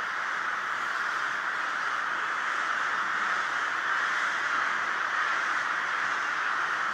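A huge flock of crows calling all at once as they mass over an evening roost: hundreds of overlapping caws merge into one dense, unbroken din.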